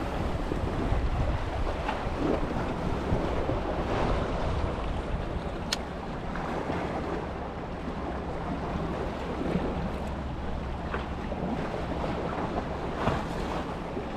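Wind buffeting the microphone over sea water lapping and splashing, a steady rushing noise, with two short sharp clicks partway through.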